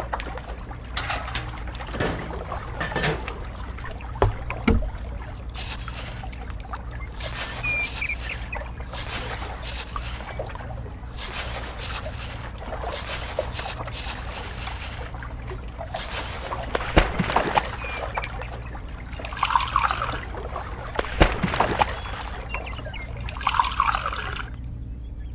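Dry sand and cement are scooped with a small spoon and poured from miniature pails into a toy concrete mixer's can drum, a rustle in stretches with small clinks and knocks. Near the end, water is poured into the drum and trickles.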